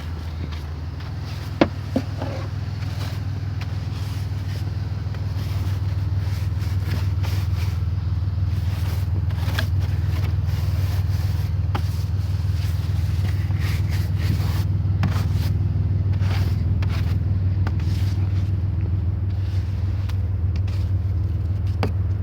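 Car engine idling with a steady low hum while snow is scraped and brushed off the car in short, uneven strokes, with two sharp knocks about two seconds in.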